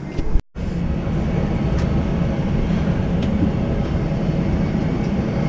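A short dropout, then a steady low mechanical rumble with an even hiss above it: machinery running.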